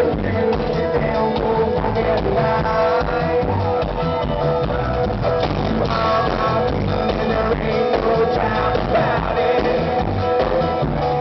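A live band playing rock music, with amplified acoustic guitar and a drum kit, heard from within the audience.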